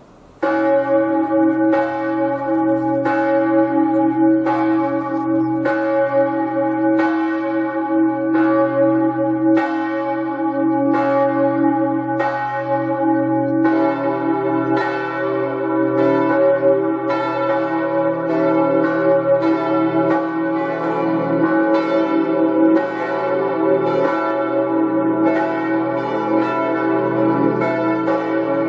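Church bells ringing, starting suddenly about half a second in. Strikes come a little more than once a second, each leaving a long ring that overlaps the next, and the pitches shift partway through as different bells sound.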